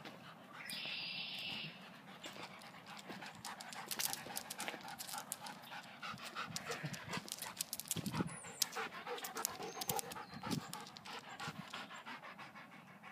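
A large dog panting rapidly, with a brief steady hiss about a second in.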